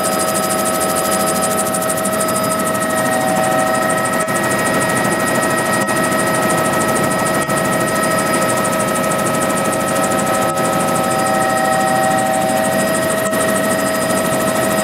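Helicopter engine and rotors heard from inside the cabin in flight: a steady, loud running noise with a high, even whine over it.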